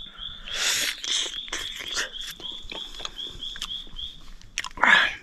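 Wet chewing and biting of a mouthful of wild honeycomb, with a short, loud breathy sound near the end. Behind it, a small creature keeps up a high chirping call, about three short chirps a second.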